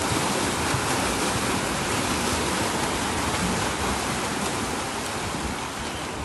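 Splashing from many swimmers sprinting front crawl side by side: a steady wash of kicks and arm strokes churning the water, easing a little near the end as they reach the wall.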